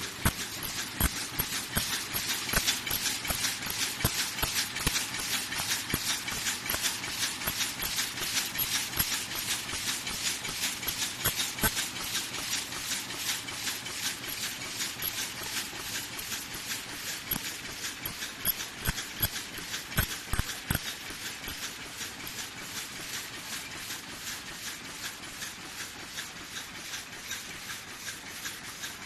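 Automatic paper cup forming machines running: a fast, continuous mechanical clatter of sharp clicks and clacks, several a second, growing fainter in the second half.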